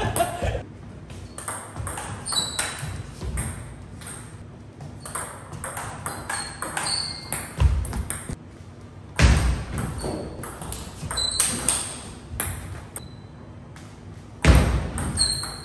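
Table tennis ball clicking sharply off the table and bats, in scattered single bounces and then a rally near the end, with a few heavier thumps among them.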